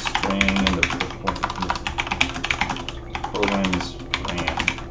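Fast typing on a computer keyboard: a quick, uneven run of key clicks.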